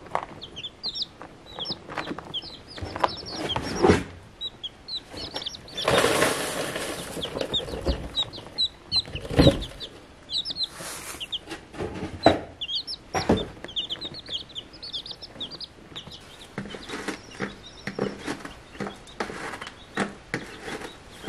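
Baby chicks peeping over and over in short, high cheeps. Scattered knocks and two longer bursts of rustling noise come in among them.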